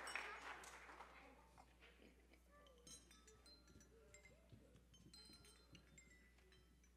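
Audience applause dying away in the first second, then near silence in a large room with faint high clinks and soft knocks and murmurs.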